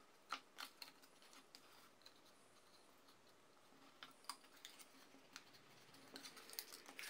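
Faint taps and crackles of card stock being handled as the glued flaps of a small paper box are pressed into place: a few quick clicks at the start, a few more in the middle, and a denser run near the end.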